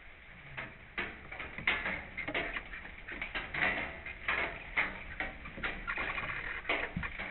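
Irregular tapping and scratching that starts about a second in and gets busier, with a low thump near the end.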